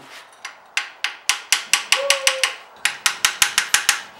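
Small brass hammer lightly tapping a flanged main bearing shell down into its saddle in a 1947 Ford 8N engine block, coaxing it to seat: a quick run of light metallic taps, about five a second, starting half a second in with a short break near three seconds.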